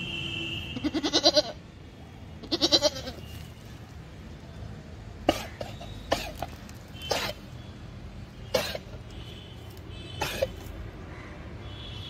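A young goat bleats twice in quick succession, each bleat a quavering call. It then coughs about five times, in short sharp bursts one to two seconds apart, with a cough that sounds much like a human's.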